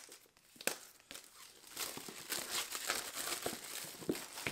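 Clear plastic shrink-wrap being peeled off a cardboard product box and crumpled in the hand, crinkling and crackling. A few separate sharp crackles come in the first second, then denser, steady crinkling from about two seconds in.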